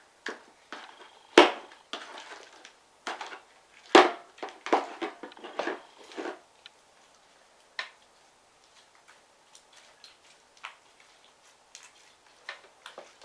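A utensil scraping and knocking against a bowl as the last of the slime is scooped from the bottom, with sharp clinks, the loudest about a second and a half in and again about four seconds in. After that come only faint small clicks and sticky sounds of slime being handled.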